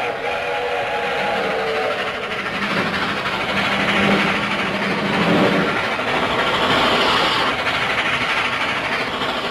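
Cartoon train sound effect: a train running with a steady, dense rattling rumble. A low steady tone joins in for a few seconds in the middle.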